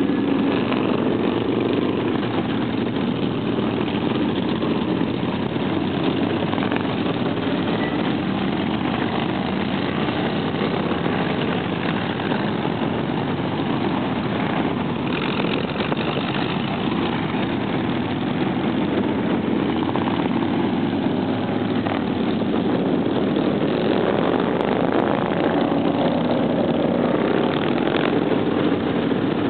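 A procession of cruiser motorcycles riding past one after another, their engines running continuously. Near the end one bike's engine note rises and falls as it passes close by.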